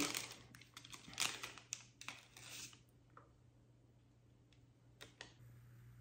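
A tea bag packet being handled and torn open: about three seconds of crinkling and small clicks, then near quiet apart from two sharp clicks near the end.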